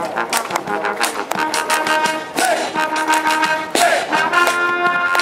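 Brass band playing, with trombones to the fore over a steady drum beat.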